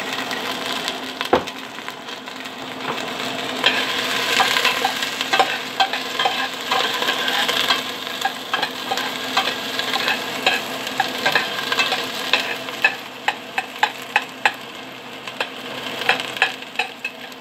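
Chopped onion sizzling in hot oil in a stainless steel pot while being stirred, the metal utensil scraping and clicking against the pot, the clicks coming more often near the end.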